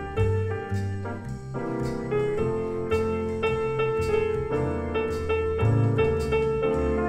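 Grand piano playing jazz chords with a bass line moving beneath, about two notes a second.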